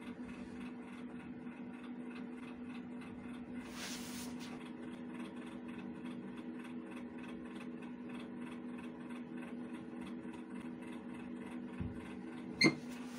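A steady hum with a faint, evenly repeating pulse, and a single sharp click near the end.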